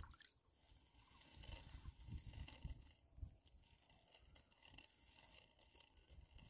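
Near silence, with a few faint scrapes, soft knocks and clicks.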